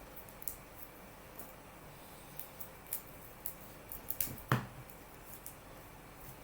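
Trading cards being handled and sorted: scattered small clicks and taps, with a quick cluster and one louder knock about four and a half seconds in.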